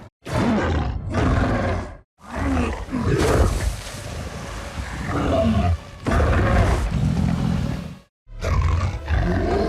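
Skar King's creature vocal sound effects: three separate ape-like roars and growls, each cut off by a short silence, the middle one the longest.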